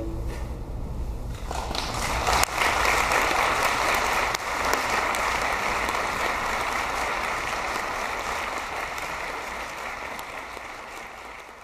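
A clarinet ensemble's closing chord cuts off, then audience applause builds from about a second and a half in, stays dense and slowly fades near the end.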